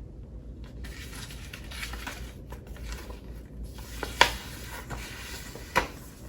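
Paper rustling as the pages of a CD lyric booklet are leafed through, with two sharp snaps, the first about four seconds in and the second nearly two seconds later.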